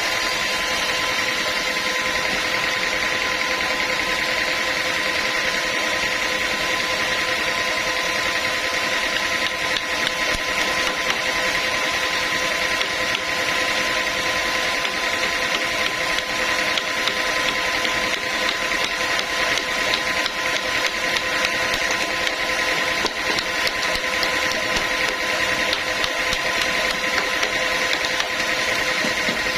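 Sawmill machinery running steadily: a constant mechanical whine over a noisy rush, with no letup.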